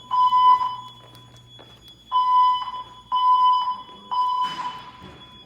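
Wheelock E70 speaker strobes on a Silent Knight IFP-100 voice-evacuation panel sounding the alert tone that comes before the spoken evacuation message. It is a steady mid-pitched beep in half-second pulses: one beep, a pause, then three in a row about a second apart.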